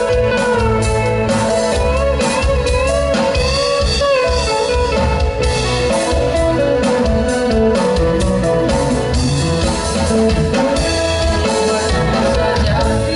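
A live band playing: an electric guitar leads with a wavering, bending melody over bass and drum kit.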